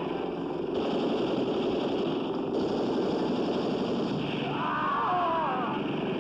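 Film shootout sound effects: continuous gunfire and explosions, the blasts throwing up spray on the water around the boats. A short wavering tone rises over the din about five seconds in.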